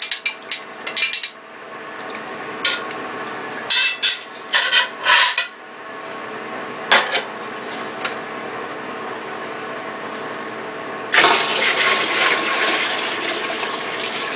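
Clinks and knocks of a stainless pot and cone strainer being handled. About eleven seconds in, pineapple-rind water starts pouring in a loud, steady stream from the stainless pot into an enamel water-bath canner.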